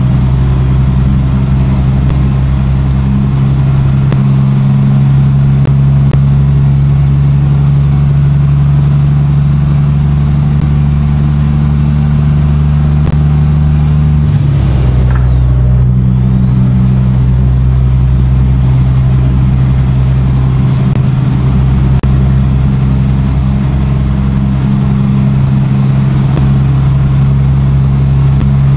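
Caterpillar C15 ACERT diesel of a Peterbilt 379 truck running steadily under way, a loud drone with a high whistle above it. About halfway through the engine note and the whistle drop briefly and then climb back up and level off.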